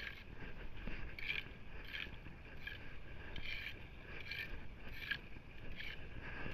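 Footsteps of a person walking in sneakers on wet, gritty pavement, a short scuff with each step, at a steady walking pace over a low rumble.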